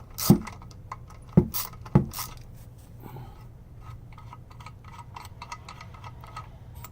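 Stubby 3/8-inch ratchet clicking as a valve spring compressor bolt is backed off to relieve valve spring tension. There are a few sharp metal clicks in the first two seconds, then a run of quicker, lighter ticks.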